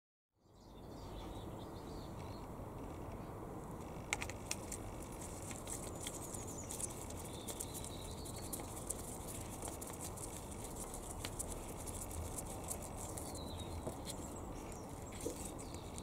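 Light clicks and rubbing from gloved hands threading a new oil pressure switch into the engine block by hand, over a steady background hiss with a few faint bird chirps. The sound fades in about half a second in, and the clicks thicken from about four seconds in.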